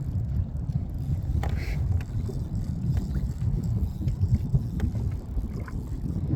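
Low, steady wind rumble on the microphone, with a few faint light ticks.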